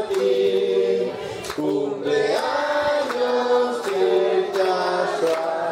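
A group of people singing a birthday song together in Spanish, holding long notes, with hand clapping.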